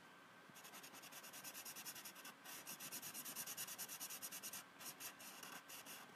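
Felt-tip marker scratching over paper in quick back-and-forth colouring strokes, several a second, faint. The strokes stop a little before five seconds in, then a few lighter ones follow.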